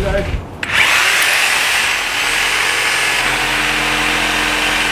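Power saw cutting into a tree trunk. It starts suddenly under a second in and runs steadily at full cut.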